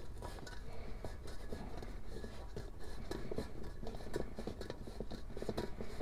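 Cork gasket strip being pressed and worked into the rim of a metal headlight reflector: faint, irregular scratching and small ticks.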